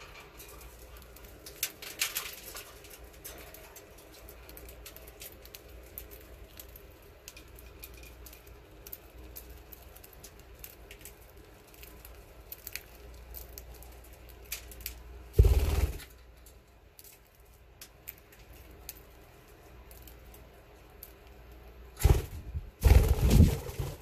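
Budgerigars pecking and cracking seed from a hand: many small, irregular clicks. Loud bursts of wing flapping break in about two-thirds of the way through and twice near the end as birds take off.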